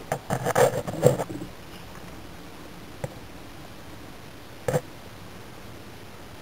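A flurry of scraping and knocking noises for about a second and a half, then a steady hiss broken by a small click and, a little later, one sharper knock.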